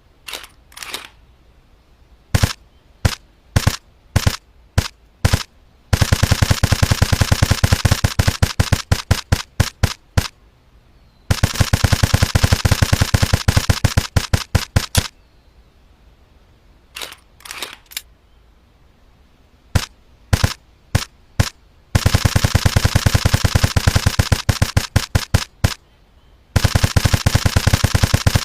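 FN SCAR airsoft gun firing: several single shots spaced about half a second to a second apart, then long rapid full-auto bursts of several seconds each. Semi-auto shots and automatic strings alternate again later.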